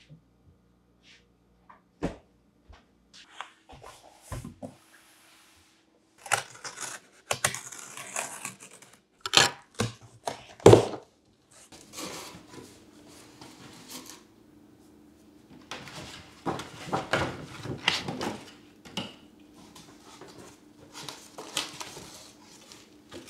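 A large cardboard box being opened by hand: flaps folded back and cardboard packing inserts rustling, scraping and knocking, with a few sharp knocks partway through and denser rustling in the second half.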